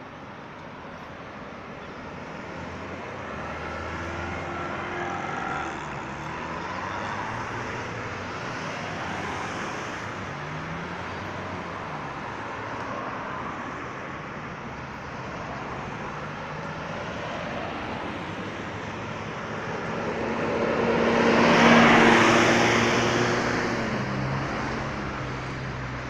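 Road traffic circling a roundabout: a steady mix of car engines and tyre noise, with engine notes rising and falling in pitch. Near the end one vehicle passes close by, swelling to the loudest moment and then fading.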